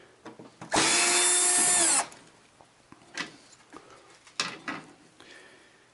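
Cordless drill-driver running for a little over a second as it backs a screw out of the TV's rear panel, its motor whine dropping in pitch as it stops. Light clicks and knocks of handling parts follow.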